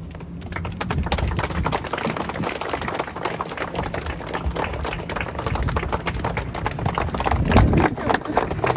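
A crowd applauding, a steady patter of many hands clapping.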